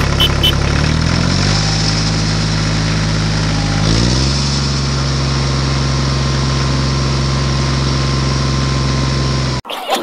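Tractor engine running. It revs up in two steps in the first few seconds, then holds a steady note and cuts off abruptly just before the end.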